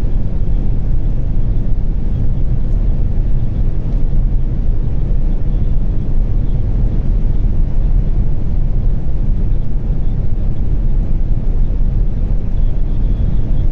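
Steady, low wind rush and road noise inside the cabin of a Volvo V40 T3 driving flat out near its top speed. The wind noise comes in only at high speed, the noise the driver wants to track down.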